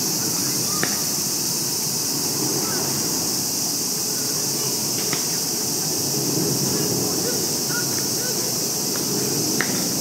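Cicadas ringing in a steady, high-pitched chorus, with a low steady rumble underneath and a few faint ticks.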